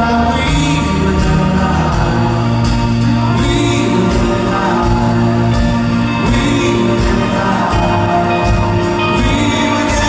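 Live rock song played through a concert hall's PA and recorded from the audience: strummed acoustic guitars over bass and drums, with a man singing.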